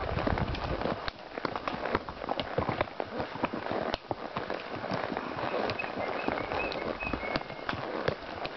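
Horses walking on a dirt trail, heard from the saddle: a dense, irregular run of hoof clicks and crunches on dry dirt and small stones.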